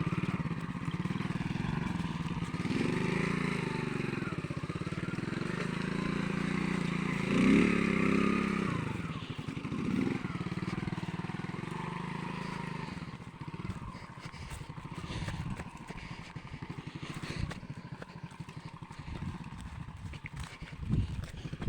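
Small Alpha moped engine running and revving up and down as it rides, loudest about seven seconds in, then running lower and more unevenly.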